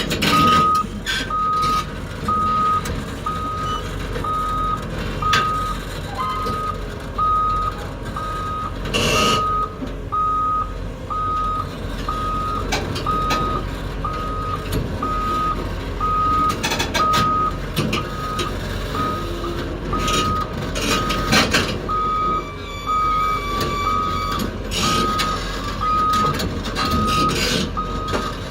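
Back-up alarm beeping evenly, about three beeps every two seconds, over the steady running of heavy diesel machinery during excavator truck loading, with occasional knocks and clatters.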